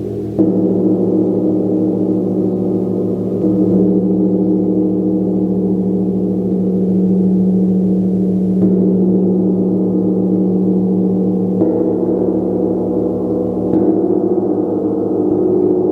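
Gong being played in a continuous sustained wash of low ringing tones, struck again softly every few seconds so the shimmer keeps renewing without dying away.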